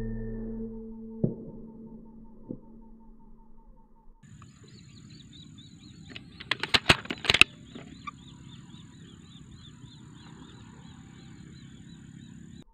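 The report of a rifle shot dying away, with a single knock a second or so in. Then faint rhythmic chirping, with a quick run of loud sharp clicks about six to seven seconds in.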